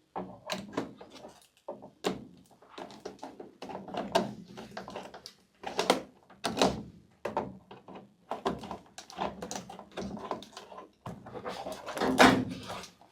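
Irregular knocks, clicks and plastic rattles of parts being handled as a ceiling bathroom heater unit is taken apart, with a louder clatter near the end.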